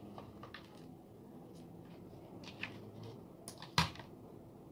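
Light scattered clicks and taps of small drone parts and tools being handled, with one sharper knock almost four seconds in, over a faint low hum.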